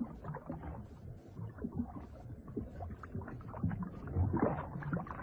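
Water swishing and sloshing as a sea snake swims through it, with irregular small splashes over a low rumble, louder about four seconds in.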